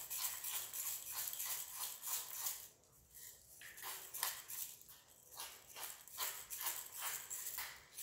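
Hand-twisted pepper mill grinding black peppercorns: a run of quick grinding strokes, several a second, with short pauses about three seconds in and again near six seconds.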